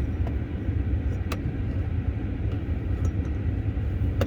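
Steady low rumble inside a parked electric car's cabin, with a few light clicks of a phone and clamp being handled.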